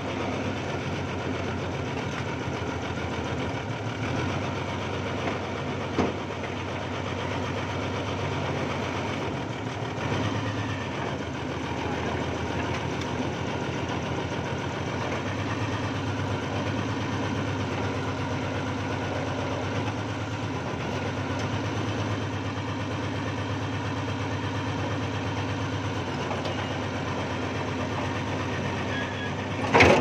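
Old backhoe's diesel engine running steadily, heard from inside the open cab while the boom and bucket are worked. Its low hum grows heavier for about ten seconds past the middle. There is a short knock about six seconds in and a louder knock right at the end.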